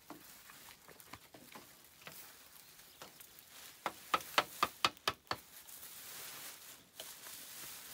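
Bamboo slats of a wall clicking and knocking against each other as a hand works them into place: a quick run of about eight sharp clicks past the middle, over a faint steady hiss.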